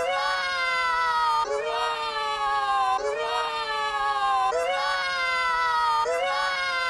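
A cartoon voice's drawn-out yell, pitch-shifted and looped: the same held cry restarts about every one and a half seconds, each time sliding slowly down in pitch.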